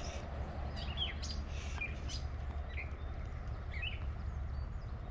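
Small birds chirping, short high calls scattered through, over a steady low rumble.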